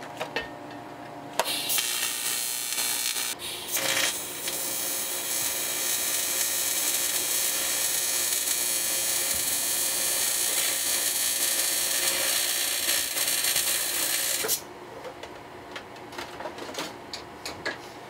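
Welding arc hissing steadily, first in a short burst of about two seconds, then in a run of about ten seconds that cuts off suddenly. A few light metallic clinks follow near the end.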